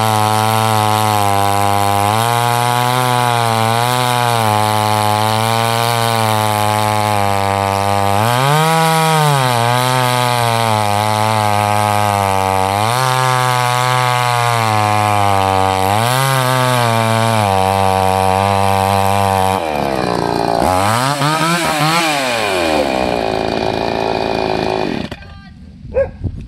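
Salem Master 6220G 62cc two-stroke chainsaw at full throttle with its 20-inch bar buried in a large log; the engine pitch sags under load several times. Near the end the pitch swings up and down and the engine stops. It is not reaching full RPM in the cut, which the owner puts down to a carburetor not quite set right.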